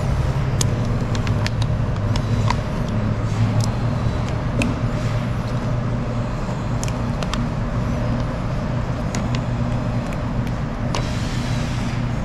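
A steady low mechanical hum with scattered light clicks and crinkles from window tint film being trimmed by hand with a blade.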